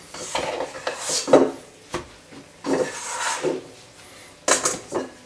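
Scraper working stiff shortcrust dough out of a stainless steel mixing bowl: a series of scraping, rubbing strokes against the bowl, with the dough put down on the worktop.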